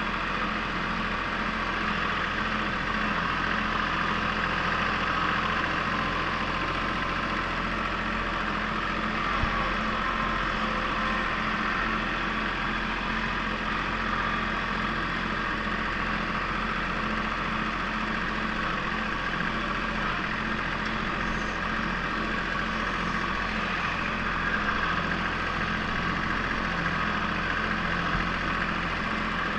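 Compact tractor engine running steadily as the tractor drives along, an even, unchanging hum.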